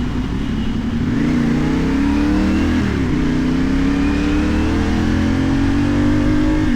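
CFMoto 450NK's parallel-twin engine, fitted with a LeoVince aftermarket exhaust, accelerating under a rider. The revs climb, drop at an upshift about three seconds in, then climb again to a second shift near the end.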